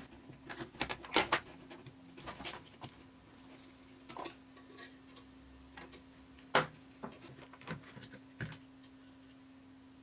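Scattered light clicks and taps of hands and small tools working on a plastic battery pack on a workbench, the sharpest knock about six and a half seconds in, over a faint steady hum.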